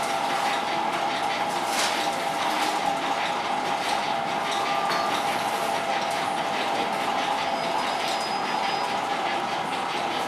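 Bakery machinery running steadily: a dense, unbroken clatter of fine ticks over a constant hum.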